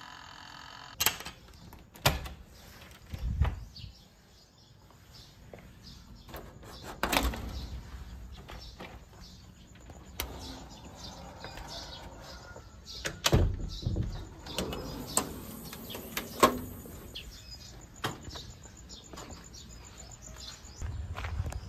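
A series of sharp knocks and clicks spread out over some twenty seconds, with birds chirping faintly in the background.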